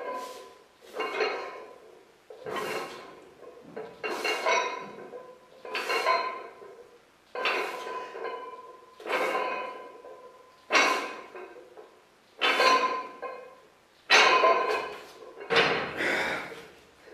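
Iron weight plates and collars clinking and rattling on a barbell with each repetition of a wrist curl, about once every one and a half seconds, with a short metallic ring after each. Near the end there is a louder, quicker clatter as the bar is set onto the rack's hooks.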